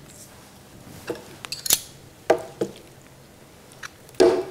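Metal spoons clinking and scraping against a plate and a stainless steel pot as food is plated and pesto is scooped: a handful of short clinks, the loudest near the end with a brief ring.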